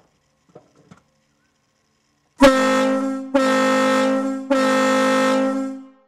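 Kahlenberg D2 air-powered ship horn sounding three loud, deep blasts in quick succession, each starting sharply; the third is the longest and fades out.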